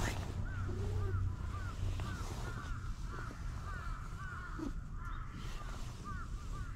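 Animal calls: a string of short, high calls, each rising and falling, about two a second and overlapping at times, over a low rumble.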